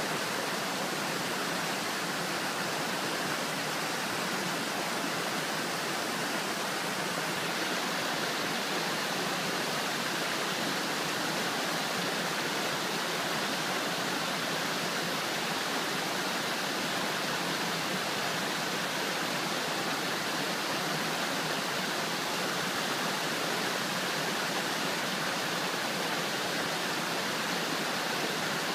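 Rocky mountain stream running over boulders in small cascades: a steady, even rush of water.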